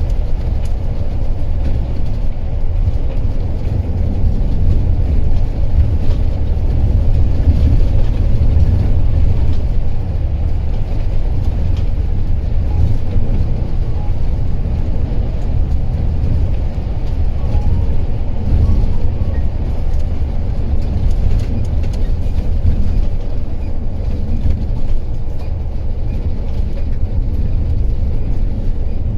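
Coach bus on the move: a steady low rumble of engine and tyre noise on the road.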